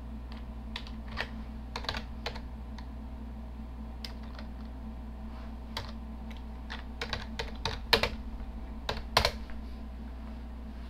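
Computer keyboard keys being pressed: scattered single keystrokes, then a quicker run of several about seven to nine seconds in, the loudest two near the end of the run. A steady low hum lies underneath.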